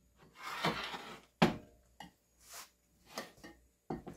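Thick white sauce poured from a cast-iron skillet into a casserole dish, heard as quiet cookware handling: a brief scrape, a sharp knock about a second and a half in, a few light taps, and another knock near the end.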